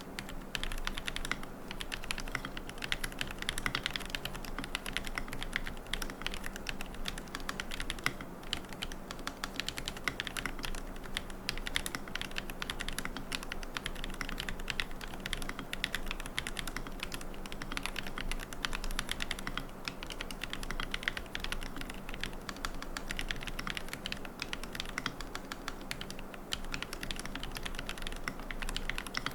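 Continuous typing on a QK75N mechanical keyboard with Gateron Moon Landing switches, a carbon plate, no foam and MilkyWay Poker keycaps. Keystrokes come in a dense, steady run of clacks with no pauses.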